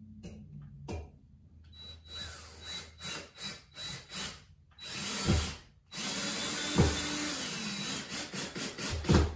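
Power drill driving screws into a blind mounting bracket: a few short stop-start bursts, then a longer steady run of the motor, with dull knocks as the screws seat.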